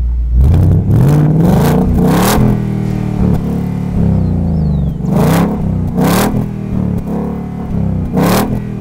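Ford Mustang Mach 1's 5.0-litre Coyote V8 revved in several quick throttle blips through its quad 4.5-inch active-valve exhaust. The pitch climbs and falls back to idle each time, with blips about a second in, near the middle and near the end.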